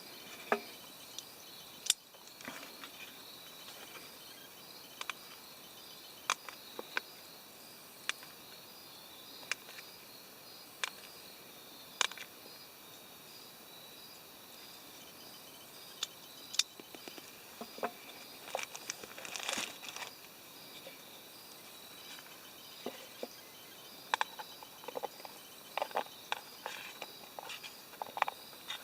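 Steady faint chirring of insects in the woods, with sharp clicks and taps spaced a second or two apart and a few short bursts of rustling handling as cheese is prepared by hand.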